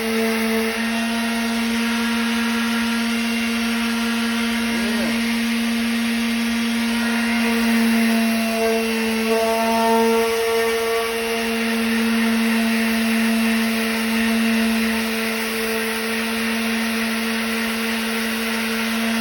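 Electric power sander running steadily while sanding down a car's body, a constant motor whine that shifts slightly in pitch now and then as it is worked over the panel.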